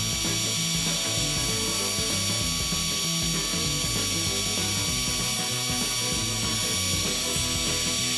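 Electric heat gun running steadily, a loud hiss of blown air with a thin high motor whine, as it melts wax. Background music plays underneath.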